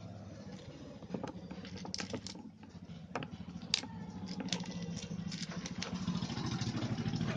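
Scattered light clicks and taps of plastic and small metal parts as the plastic upper housing of an electric iron and its screws are handled during reassembly. Underneath is a steady low engine hum that grows louder toward the end.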